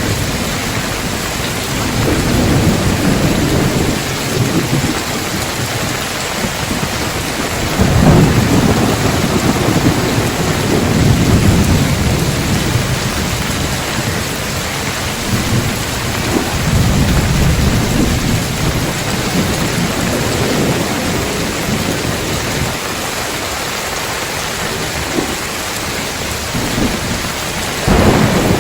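Heavy rain falling steadily on a tiled roof, with rolling thunder rumbling several times, loudest about eight seconds in. A sharp thunderclap comes near the end.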